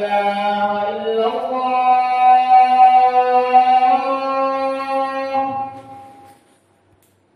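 A single unaccompanied voice chanting in long, held melodic notes. The pitch steps up about a second in, and the chant fades out about six seconds in.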